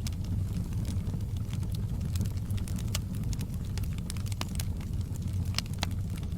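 Wood fire burning in a fireplace: a steady low rumble with frequent small crackles and pops at irregular intervals, a few of them sharper than the rest.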